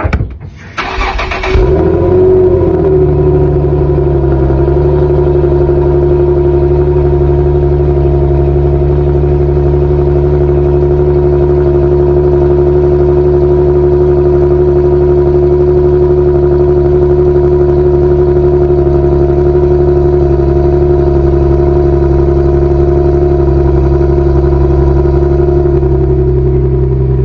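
2013 Infiniti G37's 3.7-litre V6 on its stock exhaust cold-starting: the starter cranks briefly, the engine catches about two seconds in, then settles into a steady cold idle. The idle drops slightly near the end.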